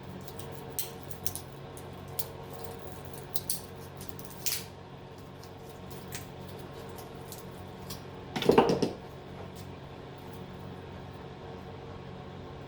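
Wire cutters snipping and small clicks from handling the leftover wires and insulation on a scrap transformer. One louder clatter comes about eight and a half seconds in.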